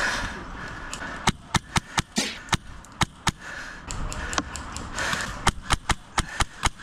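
MTW Billet HPA airsoft rifle firing a quick series of semi-automatic shots, sharp cracks coming irregularly at about three or four a second over a rushing noise.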